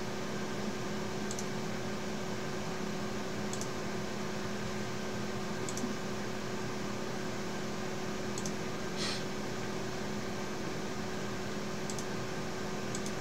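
Steady room tone: a low hum and hiss such as computer fans give, with about five or six faint mouse clicks spread through it.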